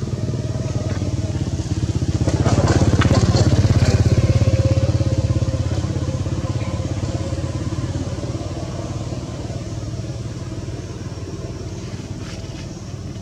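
A small engine running with a steady low throb, swelling about two seconds in and then slowly fading.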